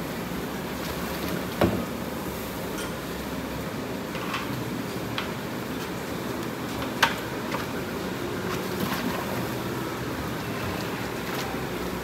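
Feed soaked in water sloshing as a wooden paddle stirs it in a large tub, over a steady background hiss. There is a knock about one and a half seconds in, and a sharp click about halfway through.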